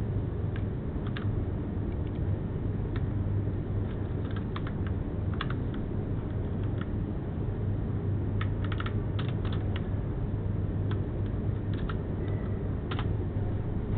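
Computer keyboard typing: irregular keystrokes, some in quick runs, over a steady low hum.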